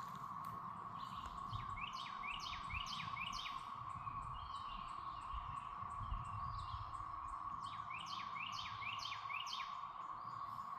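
Chorus of periodical cicadas (the 2024 13-year Brood XIX), a steady unbroken drone. Over it a songbird sings two runs of quick rising chirped notes, about a second in and again near eight seconds.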